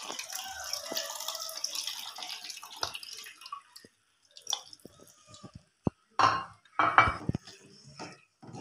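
Tamarind water poured from a steel bowl into a metal pan of cooking masala for about three and a half seconds. Then a perforated ladle stirs the pan with scattered scrapes and knocks against the metal.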